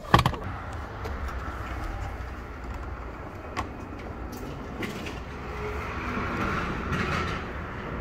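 Workshop background noise: a steady low hum with a few scattered clicks, after a sharp knock near the start.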